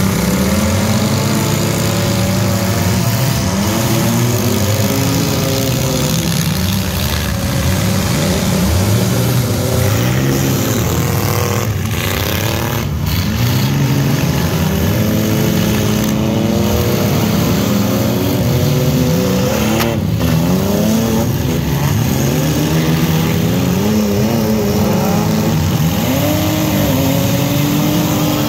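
Engines of several demolition-derby mini trucks, SUVs and vans revving up and down at once, their pitches rising and falling over each other. A few sharp bangs, about midway, fit the cars hitting each other.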